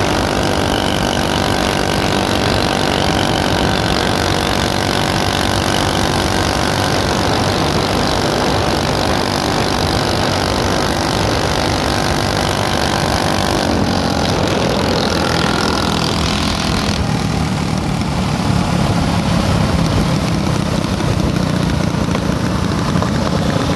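Motorbike engines cruising at a steady speed, a steady engine note holding one pitch over road and wind noise. About 14 seconds in the sound changes, and from about 17 seconds it turns lower and duller.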